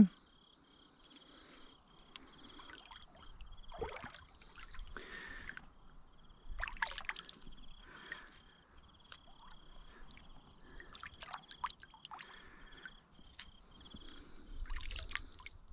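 Shallow water splashing and dripping off hands as they reach in and lift freshwater mussels out of the water, in scattered small sloshes and trickles.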